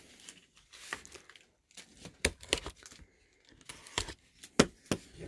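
Hands handling a cardboard trading-card box and its packaging on a tabletop. Faint crinkling and rustling at first, then several sharp taps and knocks of cardboard, the loudest a little after the middle.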